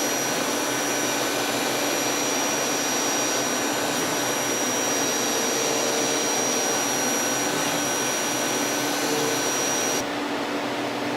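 A CNC lathe running: an even mechanical whir with steady high-pitched whines over it. Near the end the high whine cuts off abruptly and a slightly quieter whir carries on.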